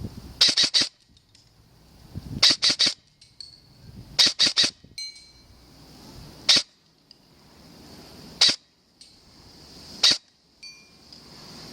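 Airsoft gun firing: three quick volleys of three or four shots, then three single shots about two seconds apart. Some hits leave a brief metallic ring from the target.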